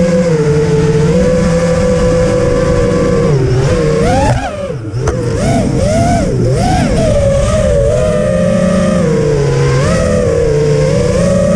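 FPV quadcopter's electric motors and propellers heard from its onboard camera: a loud steady whine that dips about four seconds in, then swoops up and down in pitch with the throttle for a few seconds before settling again.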